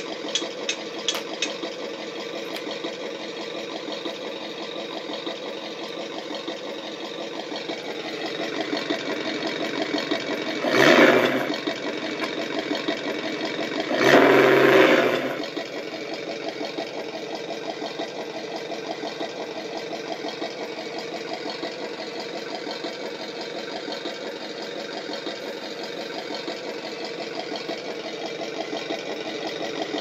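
Tamiya MFC-02 multi-function unit playing its electronic V8 truck-engine sound through the model's on-board speaker. The engine sound idles steadily, swells from about a third of the way in, and has two short louder bursts near the middle.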